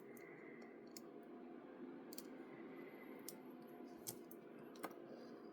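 Faint scattered clicks and taps of small plastic mount parts being handled, over a low steady hum.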